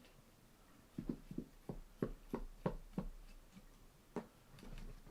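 Light handling knocks and clicks as wire and cord are worked through the plastic and metal of a kayak seat frame, a quick series of about three a second that starts about a second in and thins out after the third second.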